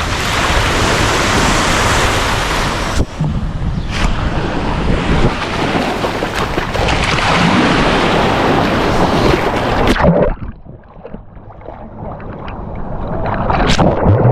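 Sea waves and wind blowing on the microphone, a steady noise that drops suddenly about ten seconds in and slowly builds again near the end.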